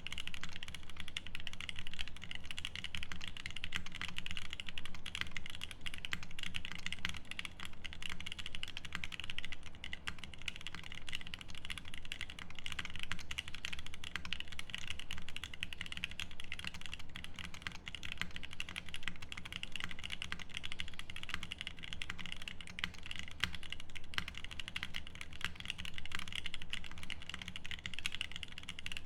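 Continuous, fast typing on a Vertigo custom mechanical keyboard with lubed Angel switches, a polycarbonate plate and GMK keycaps: a dense, steady stream of keystrokes with no pauses.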